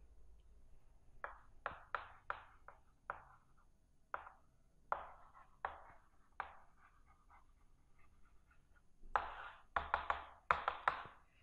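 Chalk writing on a chalkboard: a string of short, sharp taps and scratches as letters are formed, with a louder run of strokes near the end.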